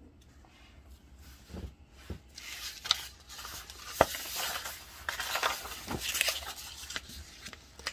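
Sheets of a paper worksheet packet rustling as pages are turned over, with a few light knocks as it is handled.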